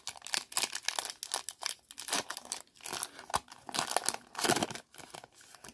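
Foil wrapper of a Panini Prizm basketball card pack being torn open and crinkled by hand: irregular crackling and ripping, heaviest in the middle and latter part.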